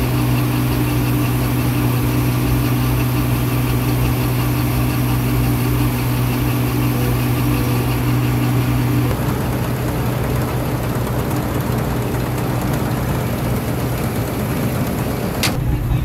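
A 1990 TX34 combine harvester running loud and steady while harvesting wheat, heard at its grain tank as threshed grain pours in. About nine seconds in, its steady hum drops away to a rougher drone, and near the end the sound changes abruptly.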